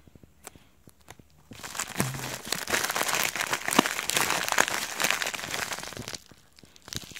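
A plastic mailer envelope crinkling and rustling as hands dig into it and pull out a small bagged item. The dense crinkling starts about a second and a half in and stops about a second before the end.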